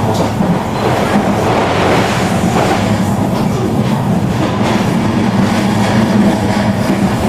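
A train passing close by: a steady loud rumble with wheels clattering over the rail joints.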